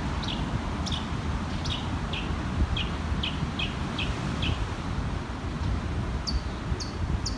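A bird calling in a series of short, falling chirps, about two a second, then switching near the end to a higher, quicker run of chirps. Underneath is a steady low rumble of wind on the microphone.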